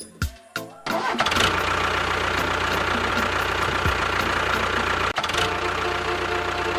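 A small motor starts up about a second in, after a few clicks, and runs steadily, apparently the motor of a DIY miniature model tractor.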